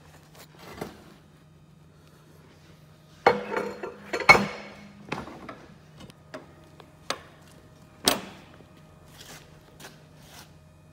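Metal handling sounds on a steel workbench: welding rods and a steel test plate knocking and clinking as they are moved. A clatter comes about three to four seconds in, then single sharp clinks follow, over a steady low hum.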